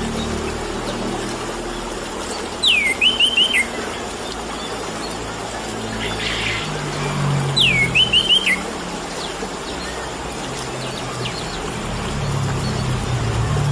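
Orange-headed thrush (anis merah) singing the same short phrase twice, a sharp downward slide followed by a quick run of four or five notes, over a steady trickle of water.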